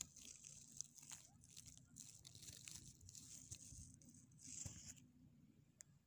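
Faint close-up rustling and crackling with scattered clicks, stopping about five seconds in.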